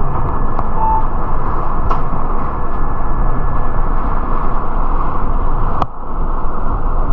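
Steady rumble of a city bus in motion, heard from inside: engine and road noise. A short beep sounds about a second in, and a sharp click comes near the end.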